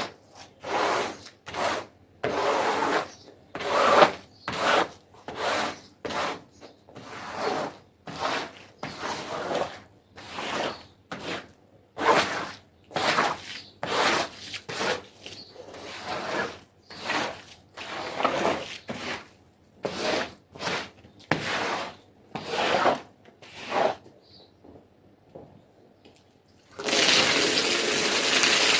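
A stiff brush scrubbing a carpet, with one rhythmic stroke roughly every three-quarters of a second. After a short pause near the end, a steady rush of spraying water starts.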